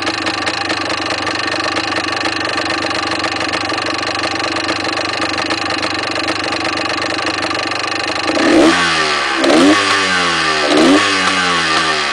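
Yamaha DT400 two-stroke single-cylinder motorcycle engine idling with a rattle, then blipped three times about a second apart near the end, the revs rising and falling each time. The owner suspects the rattle is inside the engine, which he plans to open.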